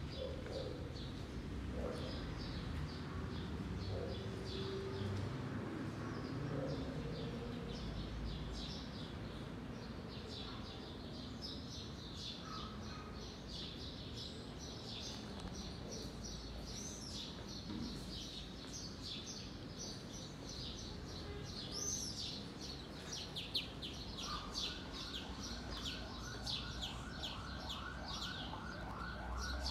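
Small birds chirping in quick, repeated bursts of short high chirps over a low, steady background hum. A lower, fast-repeating rattling sound joins in near the end.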